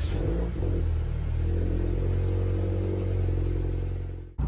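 Toyota GT86's 2.0-litre FA20 flat-four boxer engine starting cold, flaring briefly as it catches, then settling into a steady fast idle. It cuts off suddenly near the end.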